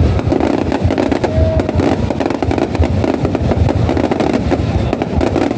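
Aerial fireworks going off in a dense, continuous barrage of booms and crackles.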